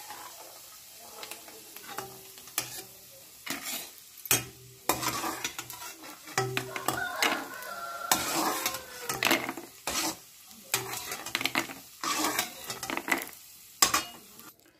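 A steel spatula scraping and tapping in a wok as peanuts are scooped out of shallow frying oil, with the oil sizzling. Scattered clicks as the peanuts are tipped onto a steel plate.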